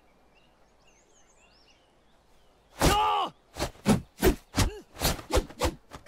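A man's loud kihap shout about three seconds in, then a rapid string of short, sharp shouts, about three a second, from a taekwondo practitioner going through a form.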